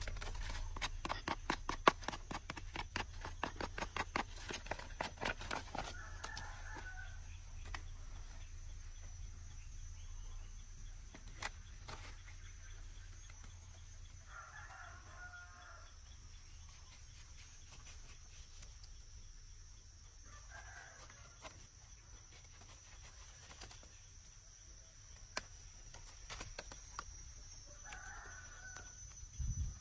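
A rapid run of sharp knife clicks and scrapes at a mango seedling's stem for the first few seconds, then a rooster crowing several times, spaced some seconds apart.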